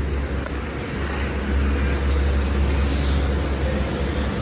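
KONE escalator running, a steady low hum and rumble under general store noise.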